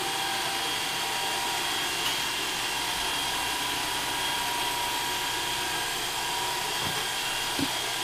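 iRobot Roomba Dirt Dog robotic sweeper running on a bare wooden floor: its motors and counter-rotating brushes give a steady whir with an even high whine.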